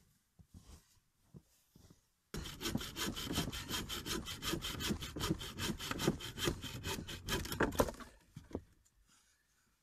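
Hand saw cutting firewood in quick, even back-and-forth strokes. It starts abruptly about two seconds in and stops near the end.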